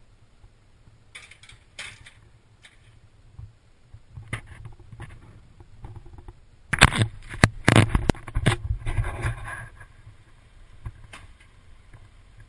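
Metal clatter of an aluminium foil pie pan being set on an oven's wire rack: a few light clicks, then a burst of loud clanks and rattling about seven to eight and a half seconds in.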